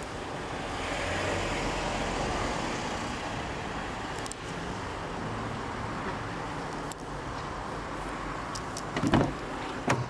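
Steady room noise with a few faint clicks, then two loud clunks near the end as the Ford S-Max's front door is opened.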